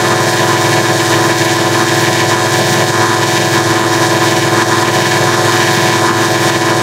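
Animation logo audio run through digital effects (a harmonic adder), coming out as a loud, steady, distorted drone of many stacked tones, with a fast pulsing flutter in the low end.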